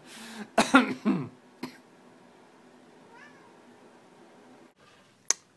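Domestic cat meowing: one loud, bending meow about a second in and a faint short meow around three seconds in, from a cat stuck up on a high shelf that does not know how to get down. A single sharp click near the end.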